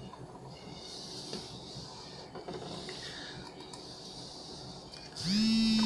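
Faint rubbing and handling noise, with a few light knocks, as a cloth and the speaker cabinet are moved about on the tabletop. About five seconds in, a loud, steady, pitched tone cuts in and holds.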